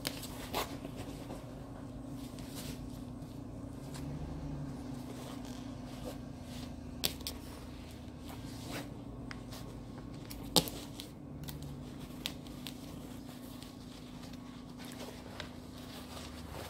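Paper towel rustling and crinkling as it is folded around a sandwich, with a few sharp taps against the counter. A steady low hum runs underneath.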